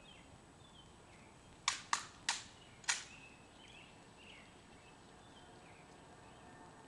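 Rifle handling during an honor-guard rifle inspection: four sharp metallic clicks in about a second and a half, a little under two seconds in, as the M14's parts are worked. Birds chirp faintly throughout.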